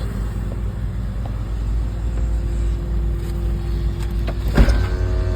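Caterpillar excavator's diesel engine running with a steady low rumble, with a short clunk about four and a half seconds in.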